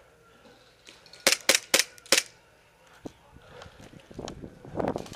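Airsoft gunfire: four sharp shots within about a second, with a single click a second later. A muffled noise swells near the end.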